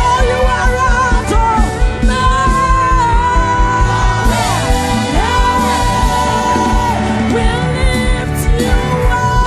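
Worship song with a band and a steady drum beat, a voice holding long high notes that slide between pitches.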